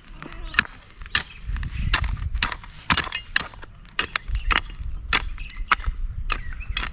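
Hoe blade striking and scraping stony, gravelly soil in sharp clicks about twice a second. Earth is being drawn up around young corn plants: moulding, or hilling, the corn.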